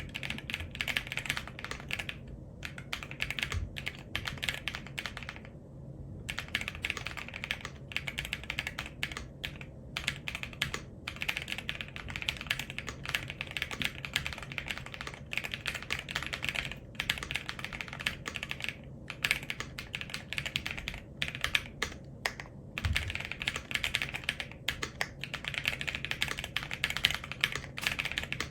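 Fast, continuous typing on an Akko ACR PRO68 mechanical keyboard with NuPhy Night Breeze switches and PBT double-shot keycaps: a dense run of key clacks with brief pauses about two and a half and six seconds in.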